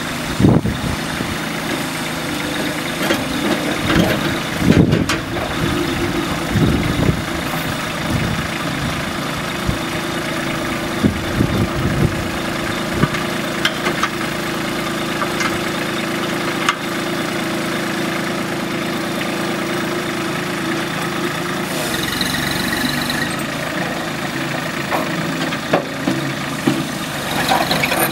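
Kubota compact tractor's diesel engine running at a steady idle, with a few sharp clicks.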